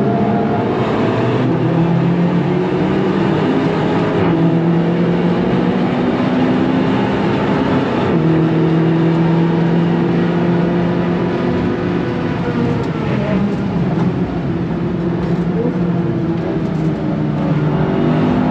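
Seat Leon Cupra 300's turbocharged four-cylinder engine heard from inside the cabin, pulling at high speed with road and wind noise. The engine note steps in pitch at a few gear changes in the first half, then falls as the car slows from about 170 to 110 km/h.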